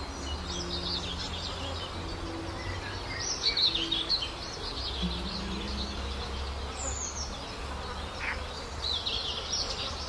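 Outdoor farm ambience: a flying insect buzzing on and off in spells of a second or two, with small birds chirping and a low rumble underneath.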